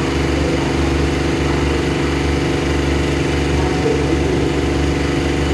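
Diesel engine of a stopped passenger train idling steadily: a loud, even, low hum with no change in speed.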